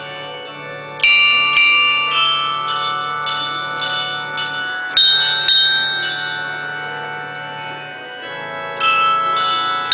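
Glockenspiel bells playing a slow tune, one struck note at a time, each note ringing on and overlapping the next, over a faint steady low hum.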